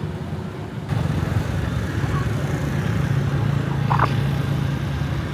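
A motor running steadily, with one brief high chirp about four seconds in.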